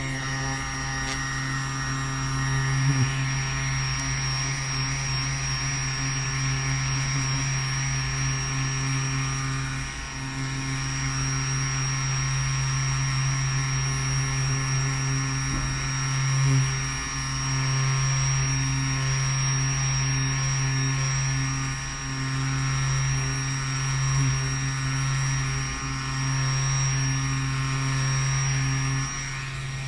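A small electric motor running with a steady hum, dipping briefly several times.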